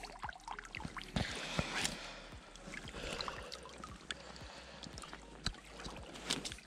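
A wet landing net with a bream in it being handled: rustling and scattered sharp clicks and knocks, with a faint trickle of water.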